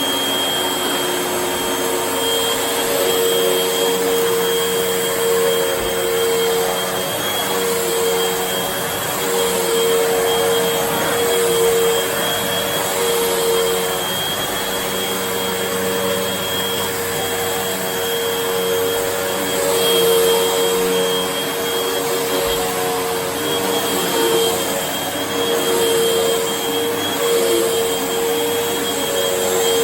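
Vacuum cleaner running steadily: a constant motor hum and whine over rushing air.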